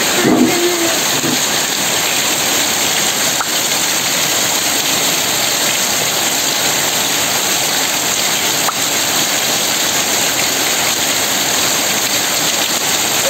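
Heavy rain falling steadily on muddy ground and trees, a loud even hiss.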